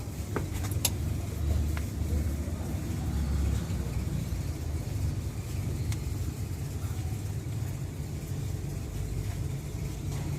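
Low, steady vehicle rumble, with a few light clicks in the first two seconds.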